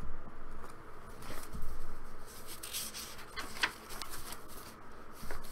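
Paper rustling as the pages of a small handmade booklet are handled and turned, with a few sharper crinkles.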